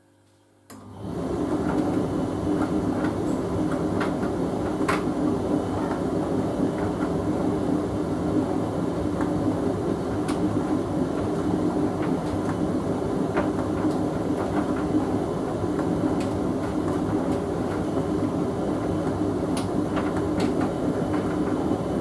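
Hoover VHV680C vented tumble dryer starting up about a second in after a brief silence, then running steadily with its motor humming and the drum rumbling, and a few light clicks from the tumbling load of mixed fabrics.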